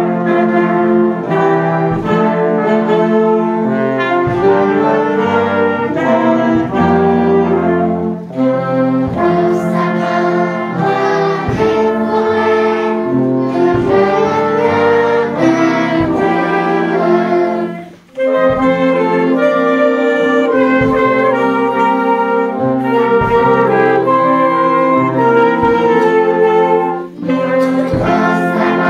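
Concert wind band of flutes, saxophones, trumpets and trombones playing a medley of Christmas songs, with a brief break between phrases about eighteen seconds in.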